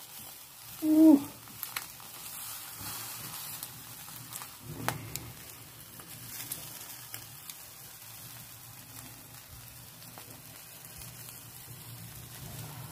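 Sauce-basted chicken pieces sizzling on an electric grill, a steady hiss with a few sharp clicks of metal tongs against the wire rack.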